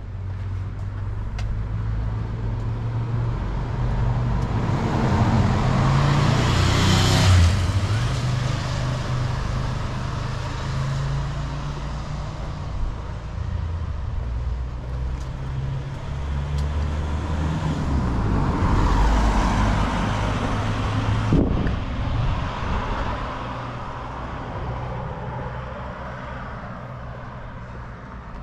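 Two cars driving past one after the other, their engines and tyres rising and fading: the first is loudest about seven seconds in, the second about two-thirds of the way through. A brief knock follows shortly after the second one.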